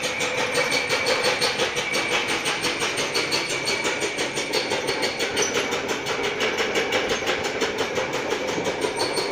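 Belt-driven rice husking machine running steadily, with a fast, even clatter of several beats a second over a steady mechanical whine.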